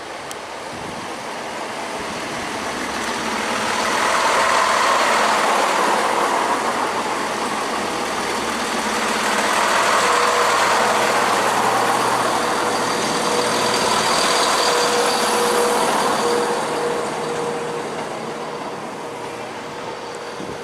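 Class 170 Turbostar diesel multiple unit running slowly into a terminal platform. Its diesel engines and wheels grow louder as it draws past, then ease off near the end, with a steady whine coming in about halfway through.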